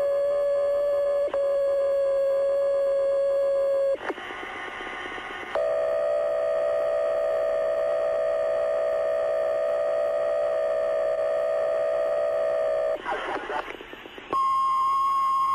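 Fire dispatch radio alert tones: one long steady tone for about four seconds, a short break of radio hiss, a second steady tone for about seven seconds, then a higher tone near the end. These are station alerting tones that call out the companies for a second alarm.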